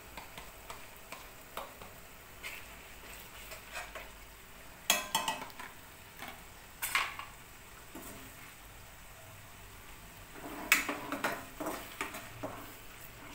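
A spatula scraping and knocking against a bowl and a nonstick kadhai while onion-tomato masala paste is stirred, with a faint sizzle of the paste frying in oil. Several sharper knocks stand out, about five, seven and eleven seconds in.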